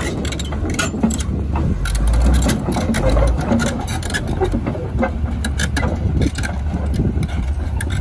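Komatsu crawler bulldozer's diesel engine running as the machine crawls off a lowboy trailer's loading ramp onto the ground, with frequent sharp clanks from its steel tracks and the ramp.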